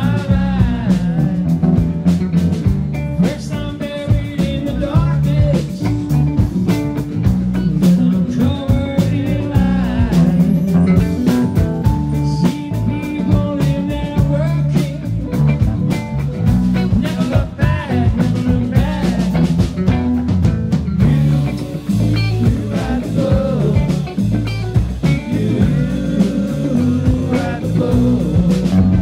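Live rock band playing: guitar lines over bass and a drum kit.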